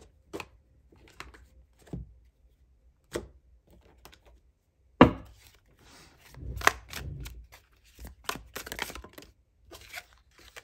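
A deck of round cards being handled and shuffled, with sharp taps and clicks of the cards against a tabletop. The loudest is one sharp knock about five seconds in, followed by a quick run of card clicks and rustles as cards are laid down.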